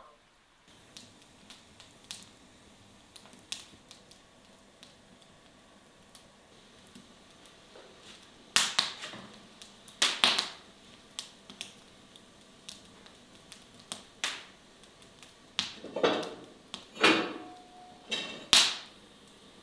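Faint scattered ticks, then from about eight seconds in a series of sharp knocks and clinks of crockery and cookware being set down on a kitchen counter and stovetop, one with a short ringing tone.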